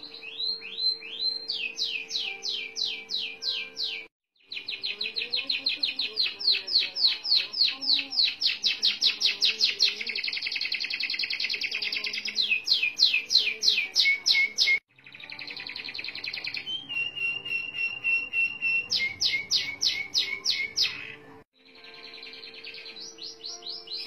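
Domestic canary singing long rolling trills: fast runs of quick repeated sweeping notes, with a held whistle partway through. The song breaks off abruptly three times and starts again.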